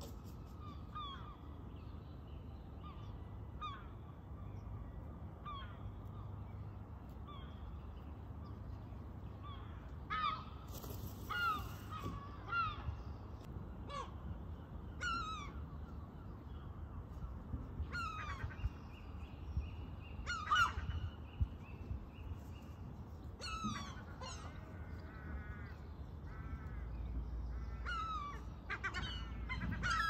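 Gulls and crows calling outdoors: many short calls that fall in pitch, some overlapping, sparse and faint at first and busier and louder from about a third of the way in. A steady low rumble runs beneath.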